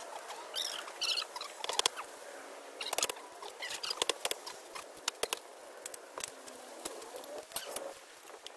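Irregular small clicks, knocks and scrapes from hand work with concrete landscape blocks and tools in loose dirt, with a few sharper clacks.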